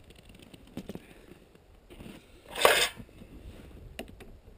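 Handling noises from screwdriver work on a snowmobile's handlebar brake master cylinder cover: a few light clicks, and about two and a half seconds in a louder rasp lasting about half a second.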